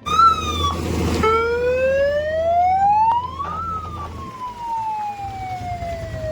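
A siren wailing: one long slow rise in pitch over about two and a half seconds, then a slow fall. A short burst of noise comes about a second in, and a low rumble runs underneath for the first four seconds.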